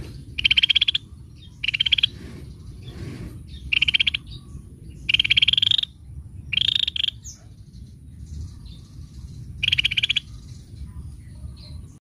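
Cucak matahari calling: six short, fast trilled calls, each about half a second long, repeated at uneven gaps of one to three seconds.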